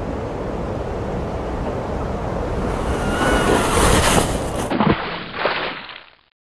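Wind rushing over the microphone as it slides down a snowy slope on a plastic sledge, building to its loudest about four seconds in. Two thumps follow, and the sound cuts off just before the end.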